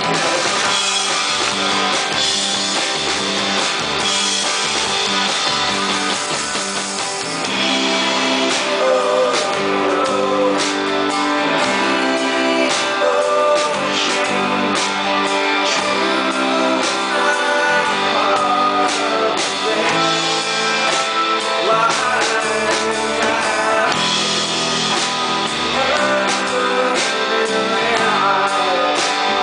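Live band performance: a man singing over a strummed acoustic guitar and an electric guitar, recorded from the audience in a club.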